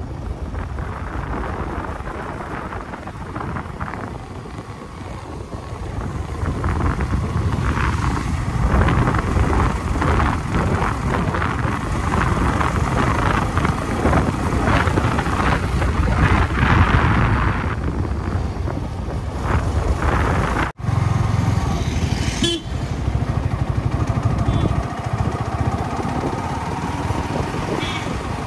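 Motorcycle on the move, its engine running under a steady rushing noise. The sound cuts out for an instant about three-quarters of the way through.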